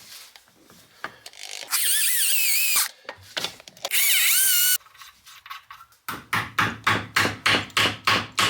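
Electric drill running in two short bursts, its whine wavering in pitch as it bores into the acrylic gear knob. From about six seconds in, a steady run of scraping strokes, about three a second.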